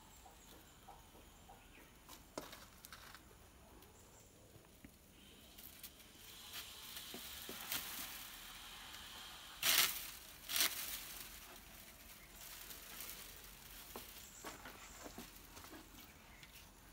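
Bundled ekel sticks (coconut leaf midribs) rustling and clicking as a broom head is bound by hand with string, with two short louder rustles a little past the middle.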